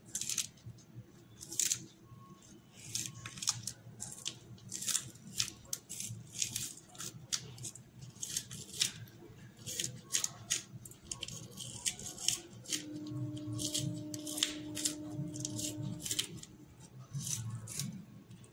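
Kitchen scissors snipping spring onion leaves: a run of crisp, short snips, one or two a second.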